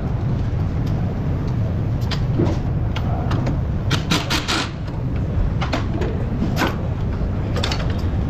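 Metal clinks and knocks as a car's front strut and coil spring are handled in a spring compressor, with a quick run of sharp clicks about four seconds in. A steady low workshop hum runs underneath.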